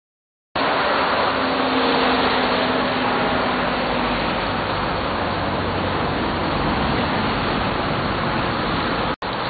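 Street traffic on a wet road: a steady hiss, with a faint engine hum in the first few seconds. It cuts out for an instant near the end.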